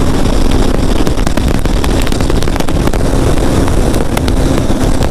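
KTM RC390's single-cylinder engine running hard at a steady high speed, its note held steady, buried in heavy wind rumble and buffeting on the microphone.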